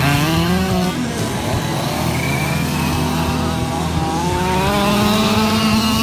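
Several 1:5-scale RC off-road cars' small two-stroke petrol engines running together, each rising and falling in pitch as it revs and lets off.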